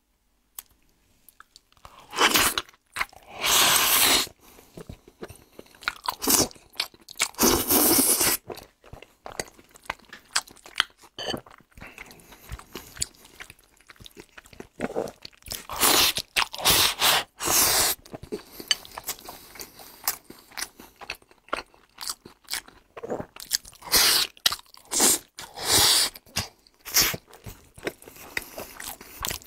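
Close-miked eating: food bitten, sucked in and chewed from a bowl with chopsticks, in loud bursts of a second or two every few seconds with quieter moist chewing between.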